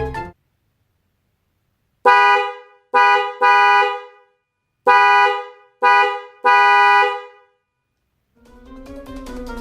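Electric car horn honking in two sets of three, short, short, long, with two close tones sounding together. Background music cuts off just after the start and fades back in near the end.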